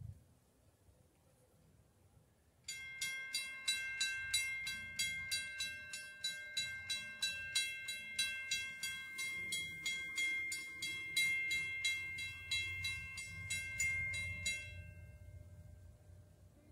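Railroad grade-crossing bell ringing in rapid, even strikes as the crossing signal activates for an approaching train. It starts a few seconds in, stops after about twelve seconds, and its ringing fades out.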